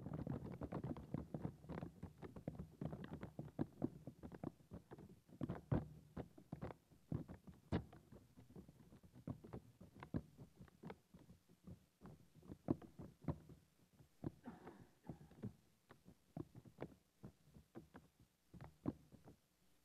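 Paper wrapped around a live microphone crackling and ticking as it slowly relaxes and unfolds, each small movement amplified into a sharp irregular click. The crackles come thick at first and grow sparser toward the end.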